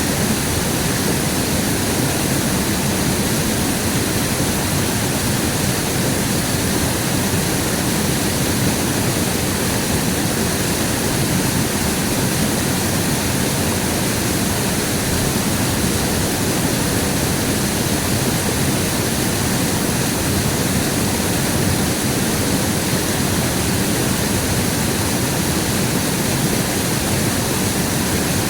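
Steady rush of flowing river water, loud and unchanging.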